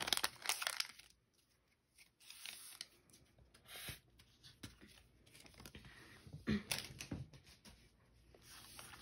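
Foil trading-card booster pack crinkling as the cards are slid out of it during the first second, then soft, scattered handling of the card stack with a few light taps.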